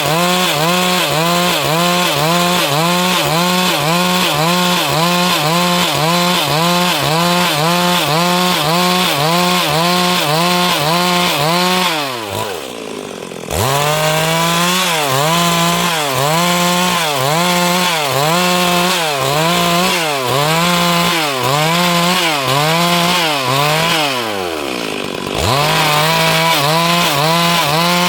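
Stihl MS382 two-stroke chainsaw cutting wood at full throttle, its engine note dipping and recovering about twice a second as the chain bites. Twice, about twelve seconds in and again after about twenty-four seconds, the throttle is let off and the engine drops briefly toward idle before revving back up.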